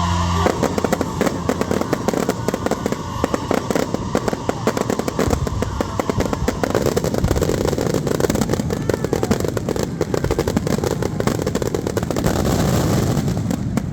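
Fireworks going off in a dense, rapid crackle of many small bangs, starting about half a second in and keeping up steadily.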